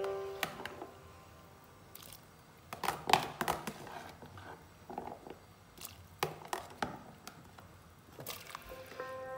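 Chunks of pineapple being dropped into a pot of water, heard as several short clusters of plops and splashes.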